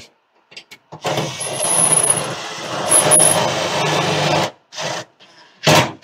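Cordless DeWalt impact driver running for about three and a half seconds, starting about a second in, as it drives a screw through the wall-mount rail into the microwave.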